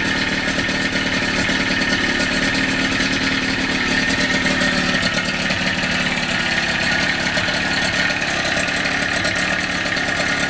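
1996 Evinrude 28 Special two-stroke outboard running steadily on fast idle just after a cold start, its throttle still advanced.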